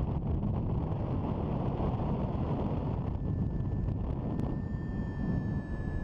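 Airflow rushing over the microphone during paraglider flight. About halfway through, a steady high electronic tone from a paragliding variometer comes in and holds.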